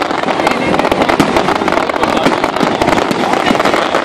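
Fireworks display going off in a dense, unbroken run of crackles and pops, with many overlapping shots.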